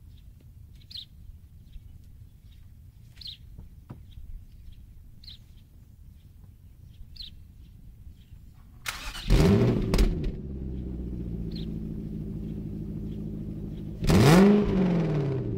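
Infiniti FX45's 4.5-litre V8 starts about nine seconds in, its note flaring up and back down as it catches, then settles into a steady idle through the exhaust. Near the end it is revved once and drops back to idle. Before the start, a bird chirps every couple of seconds.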